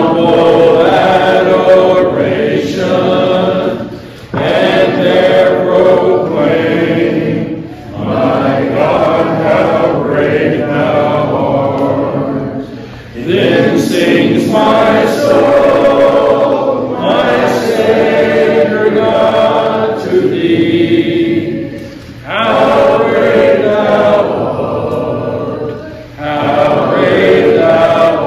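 Group of voices singing a hymn, led by a man's voice at the microphone, in sustained phrases of about four seconds with short breaks between them.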